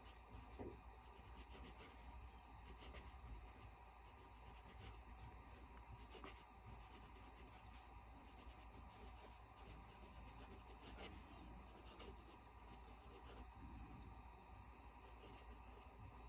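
Faint scratching of a Rotring Art Pen's medium steel fountain-pen nib writing on notebook paper, in short irregular strokes of handwriting.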